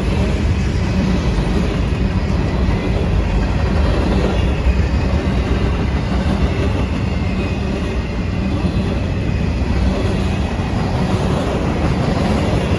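A CSX freight train passing close by, a steady loud rumble of wheels on the rails.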